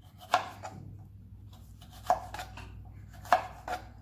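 Kitchen knife cutting bell pepper on a cutting board: sharp knife strikes in three pairs, each pair a little over a second apart.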